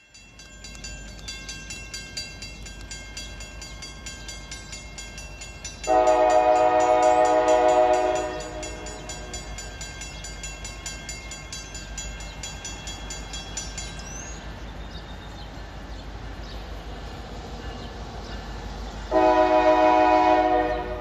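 Freight locomotive air horn sounding two long blasts, about 6 s in and again about 19 s in, as a Norfolk Southern coil train approaches a grade crossing. A grade-crossing warning bell rings rapidly and steadily under the horn, stopping about two-thirds of the way through.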